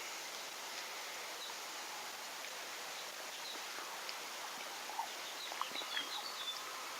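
Steady outdoor background noise with a few faint high bird chirps about six seconds in.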